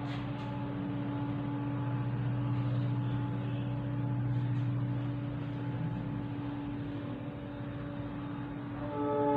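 A steady low mechanical hum with a faint hiss. Near the end, a louder sustained pitched sound made of several tones at once starts up.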